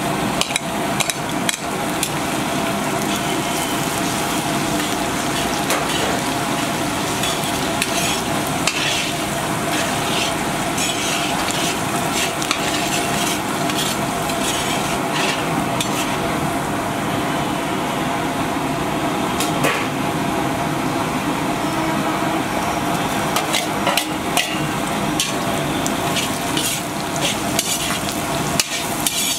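Hot oil sizzling in a large iron kadai as chopped green chillies drop in, with a perforated steel ladle scraping and clinking against the pan as the food is stirred. The clinks come thicker near the end, once chopped onions are being stirred in.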